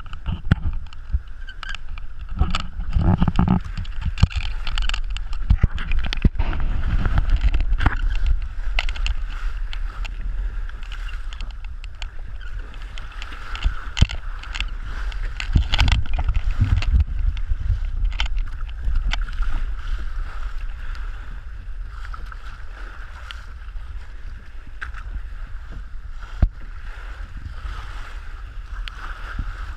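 Wind buffeting the microphone over water rushing and hissing along the hull of a small open sailing boat moving fast through choppy sea. Frequent sharp splashes and slaps come as waves break against the side.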